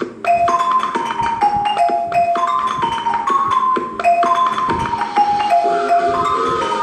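Marimba played with mallets: a quick melody of struck, ringing notes, about three to four a second. Lower notes join in under the tune near the end.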